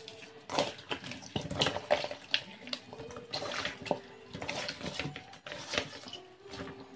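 A hand squishing and turning raw chicken drumsticks with garlic in a metal bowl, making irregular wet squelches and slaps.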